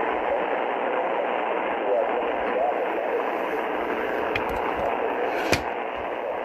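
Shortwave static and hiss from an Icom IC-R30 receiver tuned to 6.955 MHz upper sideband, with a weak voice broadcast barely showing through the noise. A single sharp click about five and a half seconds in.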